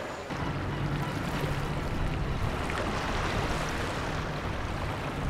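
Choppy floodwater washing, with a low steady rumble that comes in just after the start.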